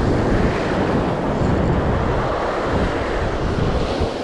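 Surf breaking and washing over shoreline rocks, mixed with wind buffeting the microphone: a steady, loud rushing noise with a gusty rumble.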